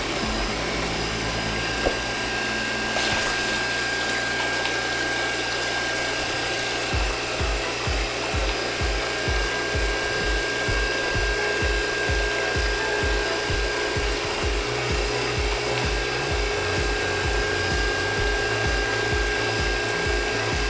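Homemade miniature electric motor water pump running with a steady whine, its water stream splashing onto wet mud. A low rhythmic pulse, about two to three a second, joins about a third of the way in.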